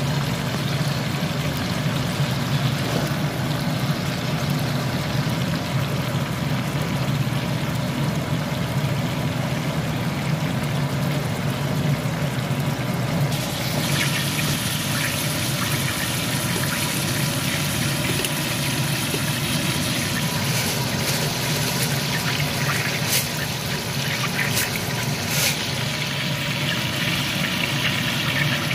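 Marinated steak frying in oil in a nonstick pan: a steady sizzle and bubbling of the pan juices, getting brighter about halfway through, over a steady low hum. A few sharp clicks or pops come near the end.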